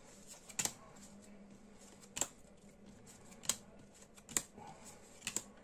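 Yu-Gi-Oh! trading cards being flicked through one at a time, each card snapping as it slides off the front of a stack of opened pack cards: about six short, sharp card snaps, roughly one a second.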